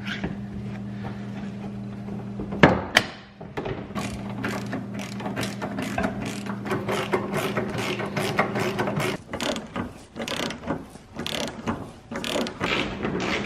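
Socket ratchet wrench clicking in quick runs as the headlight assembly's mounting bolts are run in, after two sharp knocks about three seconds in. A steady low hum underneath stops about nine seconds in.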